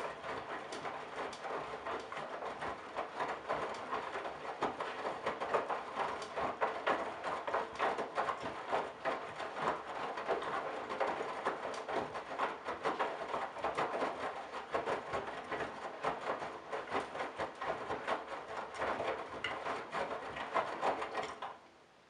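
Candy GrandO Simply-Fi front-loading washing machine tumbling a wet load during the main wash: laundry falling and slapping inside the drum and water sloshing, with the motor running. The tumbling stops near the end as the drum comes to rest for a pause.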